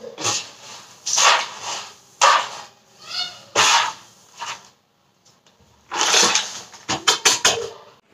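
Grass broom sweeping a hard floor in short swishing strokes about once a second, with a run of quicker strokes near the end as dust is brushed into a plastic dustpan.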